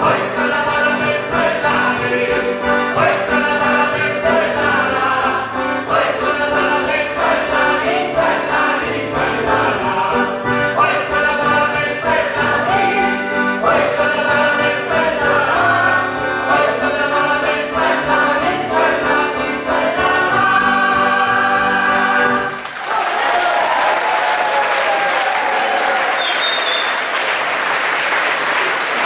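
Mixed choir of men and women singing with accordion accompaniment, ending on held notes about 23 seconds in; the audience then breaks into steady applause.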